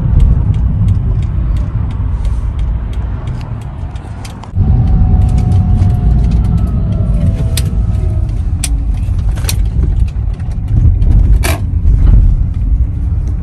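A car driving, with a steady low rumble of road and engine noise and a few sharp clicks or knocks scattered through it.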